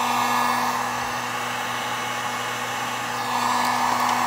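Handheld electric heat gun running steadily, a blowing fan with a constant motor hum. It cuts off suddenly at the very end.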